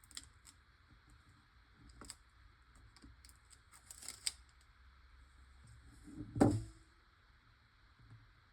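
Faint clicks and light rustles of small paper craft pieces being handled on a work surface, with one louder thump about six and a half seconds in.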